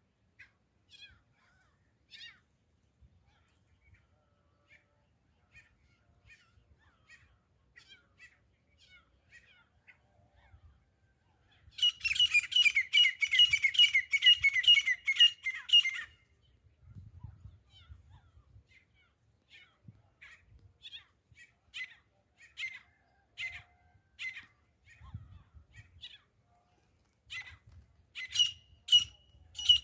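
Grey francolin calling: scattered short notes, then a loud rapid run of repeated high notes lasting about four seconds, a little under halfway in, with loud calls returning near the end.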